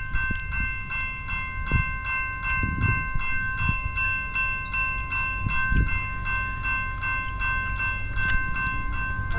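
Railroad grade-crossing bell ringing with rapid, evenly spaced strokes, its ringing tones held steady between strokes: the crossing signals are active for an approaching train.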